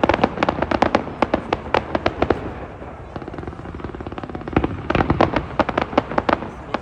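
Fireworks crackling in rapid volleys of sharp pops, several a second. The volley eases off about two and a half seconds in, then another volley starts about two seconds later.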